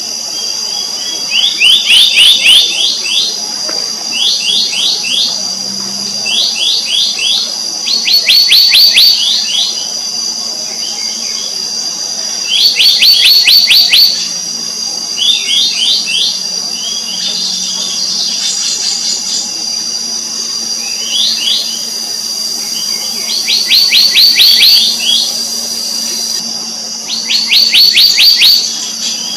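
Black-naped monarch calling: short, rapid series of sharp notes, each about a second long, repeated every few seconds. Under the calls runs a steady, high-pitched insect drone.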